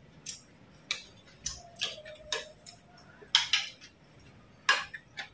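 Metal spoons tapping and scraping against plates and bowls as people eat, about eight short sharp clinks spread irregularly, the loudest two a little over halfway through.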